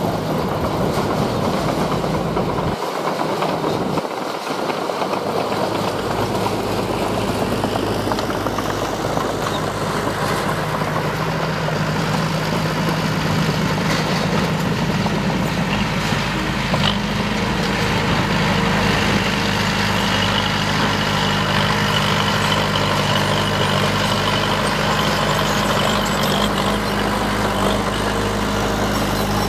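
Heavy diesel engines of earth-moving machines running steadily, with a high steady whine joining about halfway through.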